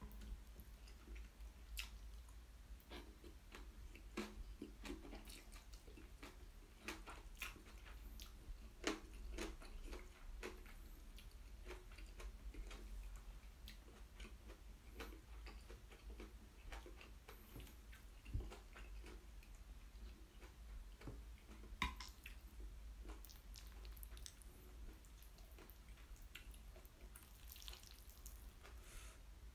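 Faint close-miked chewing of Chapagetti black bean noodles and green onion kimchi: a run of small, irregular wet mouth clicks and squelches, a few of them sharper.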